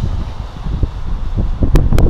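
Wind buffeting the microphone: a loud, gusty low rumble that grows stronger toward the end, with two sharp clicks near the end.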